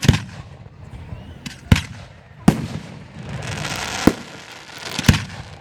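Fireworks going off: five sharp bangs at uneven spacing, the first right at the start and the last about five seconds in, with a hissing crackle swelling between the third and fourth bang.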